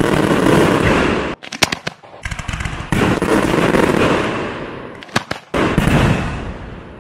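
Aerial fireworks shells bursting overhead: a dense run of bangs, with bursts of rapid crackling pops about a second and a half in and again around five seconds, fading away near the end.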